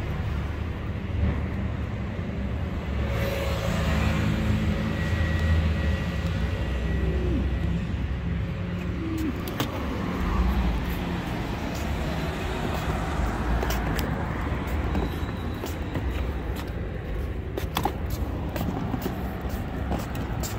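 Road traffic: a steady low rumble of passing vehicles, with a few light clicks in the second half.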